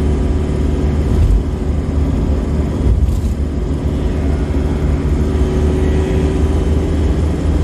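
Isuzu Panther New Hi Grade's diesel engine and tyre noise droning steadily, heard from inside the cabin while cruising at highway speed.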